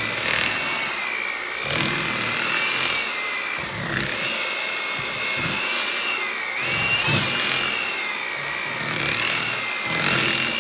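Electric hand mixer running steadily, its beaters working a thick cream cheese, butter and powdered sugar filling in a bowl. The motor's whine dips in pitch a couple of times.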